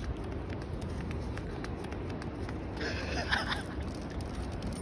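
Wind and road noise from a moving car, a steady low rumble, with one short higher-pitched sound about three seconds in.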